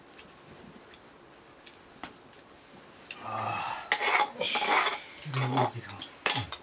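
Steel plates, cups and utensils clinking and rattling on a floor during a meal, starting about three seconds in, with a sharp clink near the end. Two brief low voice sounds come in between.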